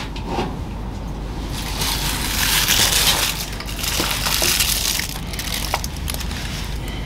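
Rustling, crunching handling noise with a few light clicks as hands pick up and handle a wooden blank and small metal parts.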